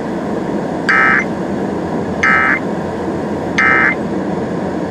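Emergency Alert System end-of-message signal: three short identical data bursts, each about a third of a second long and about a second and a half apart, marking the end of the flash flood warning. Steady radio static runs underneath.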